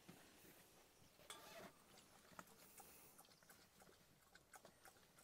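Near silence with faint, scattered little clicks: a small dog eating from a metal bowl.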